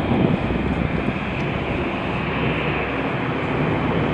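Steady low rumble of background noise, with no distinct strikes or scrapes standing out.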